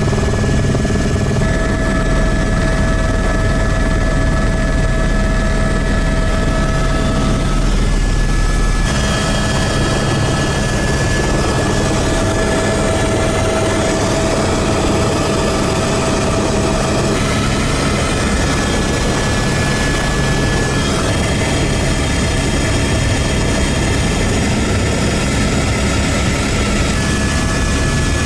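Helicopter rotor and engine running loud and steady, heard from inside the cockpit as it comes in to land on snow. The sound changes about nine seconds in, the deep rumble easing and the higher noise growing.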